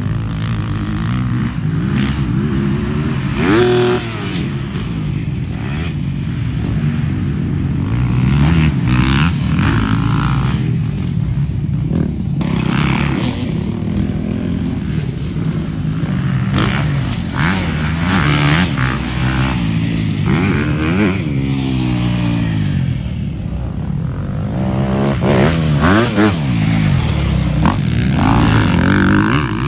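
Dirt bikes running on a motocross track, their engines revving up and down through the gears, the pitch rising and falling again and again.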